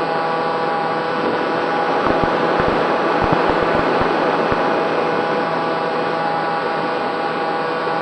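Racerstar BR2208 2600KV brushless motor and propeller of a SkySurfer RC plane running at steady throttle in flight, a constant whine with rushing wind. Several short low wind buffets hit the microphone between about two and four and a half seconds in.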